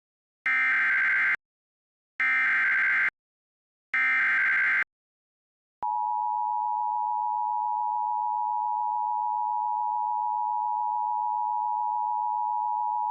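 Emergency Alert System SAME header: three bursts of data tone, each about a second long. About six seconds in, these are followed by the steady two-tone EAS attention signal. Together they announce a National Weather Service severe thunderstorm warning.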